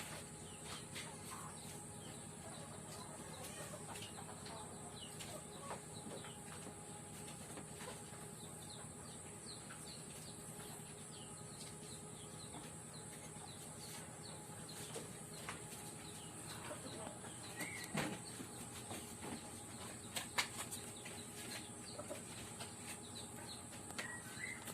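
Quiet background with occasional faint bird calls and a few light clicks.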